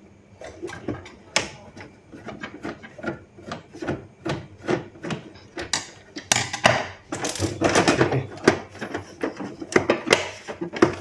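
Plastic clicks, knocks and scraping as the rear tray and cover of a Canon G3060 ink tank printer are worked loose and pulled free, growing louder and busier in the second half.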